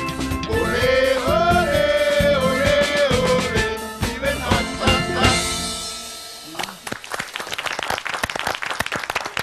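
Steel drum band with singers holding out the final notes of a song, which ends about five to six seconds in, followed by applause and hand-clapping.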